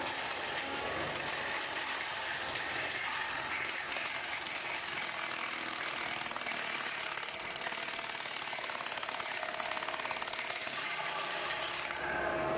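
Machinery running with a dense, fast mechanical rattle and grinding. The sound changes abruptly near the end.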